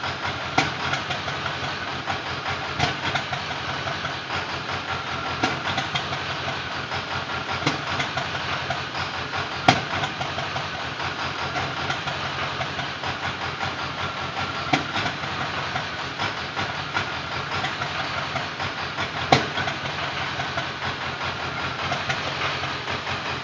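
Ford Power Stroke diesel engine idling, with sharp knocks at irregular intervals every few seconds: the sign of a bad injector.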